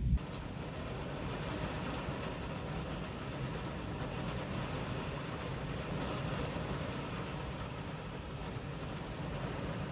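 A thump right at the start, then a steady, even rush of storm wind and rain coming in through the Jeep's open door.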